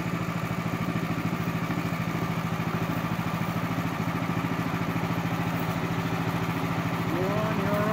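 Small engine of a ride-on miniature railway locomotive idling steadily with a fast, even putter while the train stands still.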